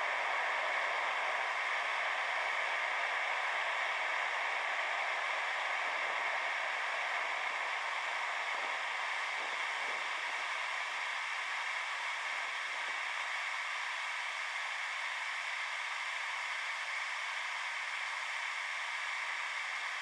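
Propane burner of a VEVOR 12 kg melting furnace running at full fire, heard as a steady, thin hiss with no low rumble because the footage is sped up about ten times. It fades very slightly over the stretch.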